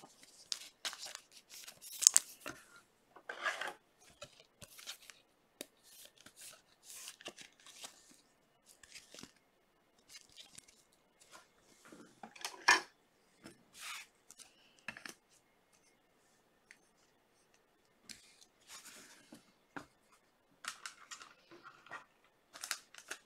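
Hands handling a trading card and its clear plastic holder: scattered rustles, scrapes and light clicks, with one louder knock about halfway through.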